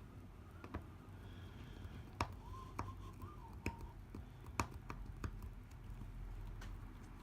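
Scattered light clicks and taps of a small screwdriver and a tiny screw against the iPad mini 2's frame as the last LCD screw is worked into a broken bracket, about seven sharp clicks at uneven intervals over a low steady hum.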